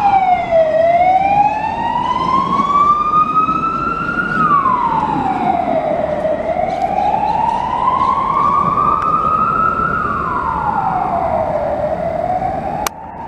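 A wailing siren, its pitch rising slowly for about four seconds and then falling more quickly, over and over. A sharp click near the end, where the sound changes.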